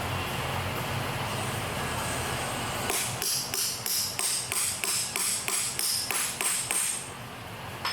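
Hammer tapping fast and evenly on a metal seal driver, driving a seal into the Toyota Tacoma's rear differential, each blow with a bright metallic ring. About three seconds in, after a steady low hum, comes a run of about three and a half taps a second lasting some four seconds, then a single tap near the end.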